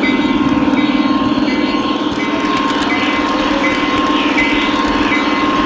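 Model train's electric motor and gears whirring, with its wheels running on the track, heard close up from a camera riding on the train: a steady mechanical drone with a fine rapid flutter.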